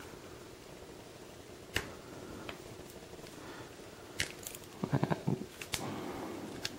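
Fingers prying and working at a phone's rigid back cover that is tough to remove, giving scattered small clicks and scrapes: a single click about two seconds in, then a cluster of clicks and knocks a little after halfway.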